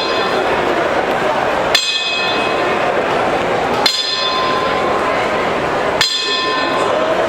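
Boxing ring bell struck three times, about two seconds apart, each strike ringing on briefly: part of a ten-bell count, the traditional salute to a boxer who has died. A steady low murmur lies beneath.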